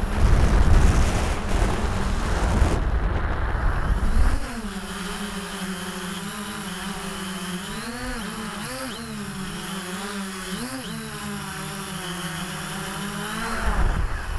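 Hexacopter's six brushless motors with 10-inch propellers heard from the onboard camera: heavy wind rumble on the microphone during a fast descent, then a steady multi-tone hum from about four seconds in as it flies low. The hum wavers in pitch several times as the throttle shifts, and changes again near the end as it touches down.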